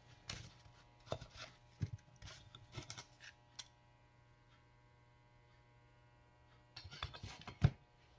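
A Honda GL1200 Gold Wing's removed aluminium engine cover being handled on a cardboard-covered bench: scattered knocks and scrapes as it is picked up and turned over, a pause, then more knocks ending in one sharper knock as it is set back down.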